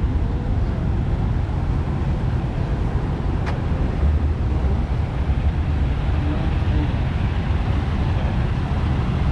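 Car engine running steadily nearby, a low rumble, with one sharp click about three and a half seconds in.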